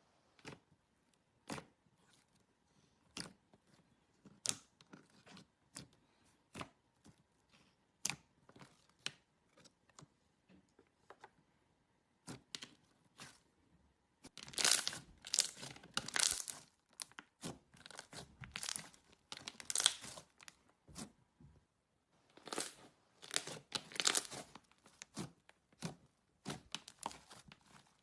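Slime being worked by hand, giving sharp separate clicks and pops, then denser runs of crackling about halfway through and again near the end.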